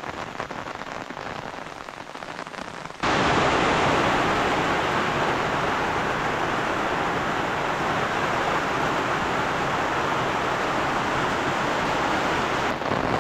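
Heavy rain falling in a steady downpour, an even hiss that turns abruptly much louder about three seconds in.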